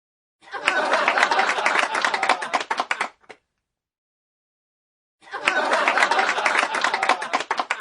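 Audience laughter mixed with clapping, a laugh-track effect, in two bursts of about three seconds each with a silent gap of about two seconds between them.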